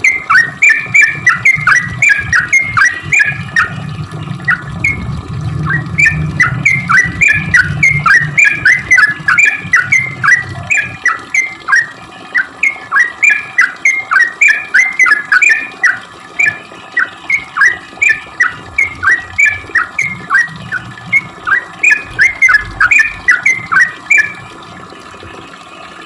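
Yellow-vented bulbul (trucukan) singing a long, rapid chattering song of short downward-swooping notes, about three a second, with a few brief breaks; the song stops shortly before the end. A low rumble sits under it for several seconds in the first half.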